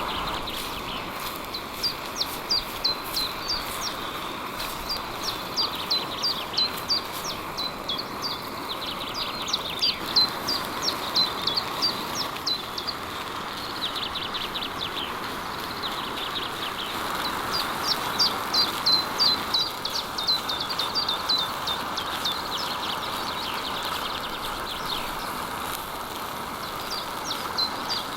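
Songbirds singing: repeated quick phrases of high, falling chirps, with a steady background hiss underneath.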